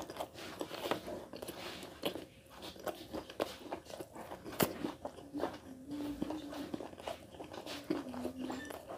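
A person biting and chewing a piece of chicken from a curry, eaten by hand: wet mouth sounds with many irregular sharp clicks.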